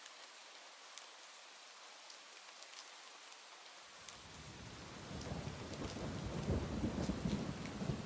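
Steady rain falling, an even hiss with scattered drop ticks. About halfway through a low rumble of thunder comes in, builds, and becomes the loudest sound.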